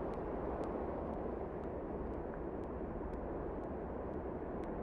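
A steady low rushing noise, with faint ticks scattered through it at irregular intervals.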